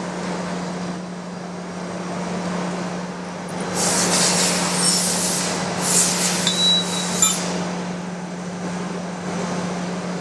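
Surface grinder running with a steady hum. From about four to seven seconds in there are several seconds of louder hissing rushes.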